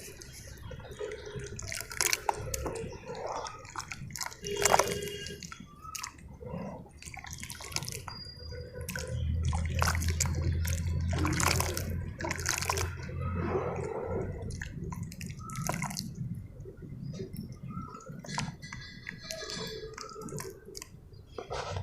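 Pure cement pieces crumbling in water: irregular wet crackles, small splashes and drips, with a low rumble midway.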